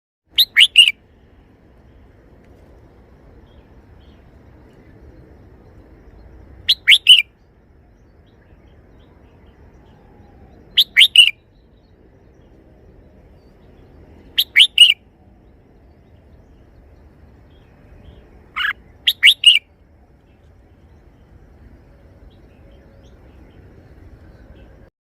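Red-whiskered bulbul singing a short three-note phrase, repeated five times a few seconds apart, over a faint low hum.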